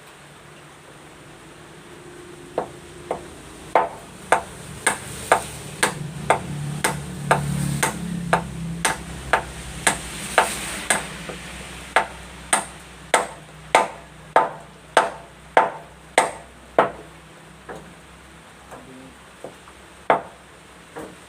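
Hammer striking a nail into wood in a steady run of about two blows a second, then a few scattered blows near the end.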